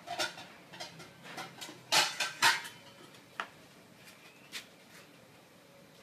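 Ladle knocking and clinking against the side of a stainless-steel soup pot as the fish and meatballs are moved around: a series of light knocks, loudest in a quick cluster about two seconds in, then a few single taps.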